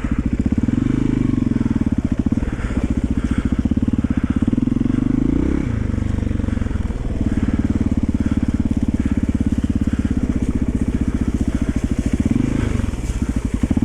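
1991 Yamaha XT350's single-cylinder four-stroke engine running steadily as the enduro is ridden. The engine note changes briefly about six seconds in and again near the end.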